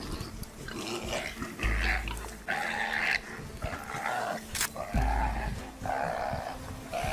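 Repeated animal calls, each about half a second long and coming roughly once a second, from a leopard and a warthog fighting at close quarters.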